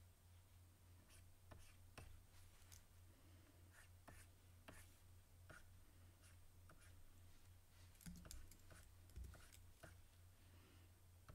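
Faint, irregular taps and light scratches of a stylus on a graphics tablet while sketching, over a steady low electrical hum.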